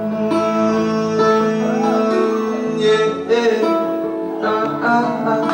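Music with many held, overlapping pitched notes and a few notes that waver in pitch, at a steady loud level.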